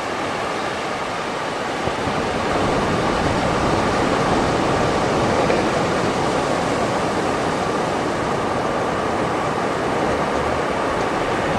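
Calm beach waves: a steady rush of surf washing on the shore, swelling a little about two seconds in.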